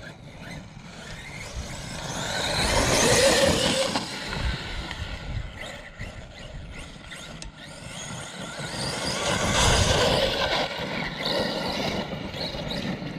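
Traxxas Sledge 1/8-scale RC truck's brushless electric motor running as the truck is driven. It gets louder and fades twice, loudest about three seconds in and again near ten seconds.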